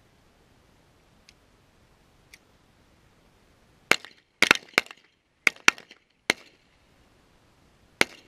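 Beretta M9 9mm pistol shots: two faint shots from further off, then about seven loud, sharp shots in an uneven string starting about four seconds in, the last one standing alone near the end.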